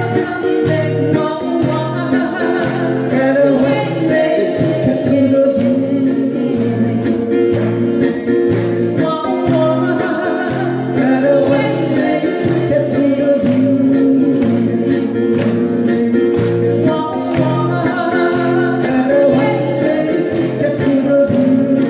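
Live band music: strummed acoustic guitars over a pulsing bass line and steady beat, with several voices singing together.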